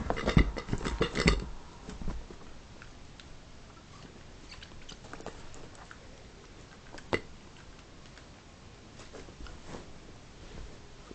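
A small dog biting and chewing a rubber pig toy: a burst of scuffling and chomping in the first second and a half, then only occasional bites and clicks.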